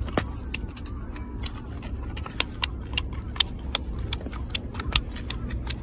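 A freshly caught stone flounder flapping and slapping on a concrete pier in a run of sharp, irregular slaps, a few a second, a sign that the fish is still lively. Wind rumbles on the microphone underneath.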